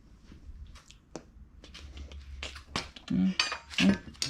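Scattered clicks and knocks of car parts being handled and set down, getting louder and busier near the end, with a short spell of muttered voice.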